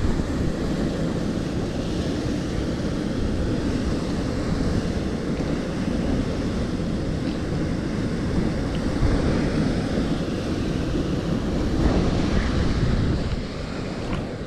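Steady rush of a waterfall and river water, with wind buffeting the microphone. It drops in level near the end.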